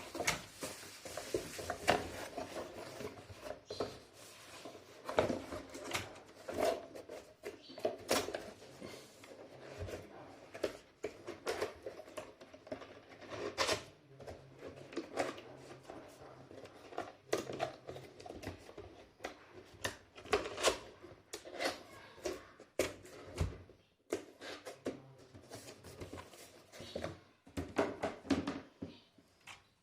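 Irregular knocks, clicks and rustles of a mechanical keyboard and its plastic wrapping and box being handled.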